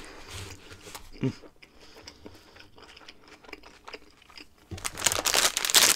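Faint chewing, then near the end loud crinkling of food packaging being handled and opened.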